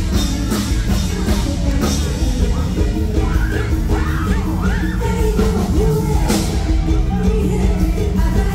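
Loud live band music with a drum kit keeping a steady beat, and a woman singing into a microphone over it through the stage sound system.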